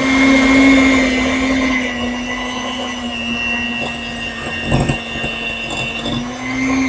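Electric hand mixer running steadily while beating cake batter in a glass bowl, its motor pitch sagging slightly and recovering as the load changes. A brief clatter just before five seconds in.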